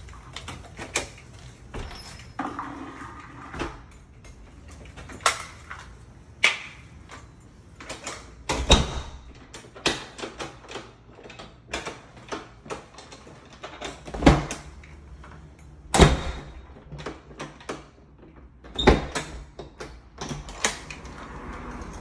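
A door fitted with a newly installed mortise lock being swung and its lock worked, its latch and bolt making a string of sharp metallic clicks and clacks at irregular intervals, a few of them much louder knocks.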